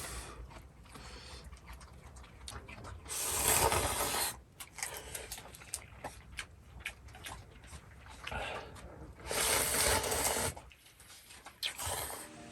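Someone eating noodles: two long, loud slurps, with small clicks and taps of utensils between them.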